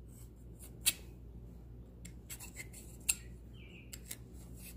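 A thin metal blade scraping caked sawdust and bar oil out of the groove of a chainsaw guide bar: faint scratching, with two sharper metal clicks about one second in and about three seconds in.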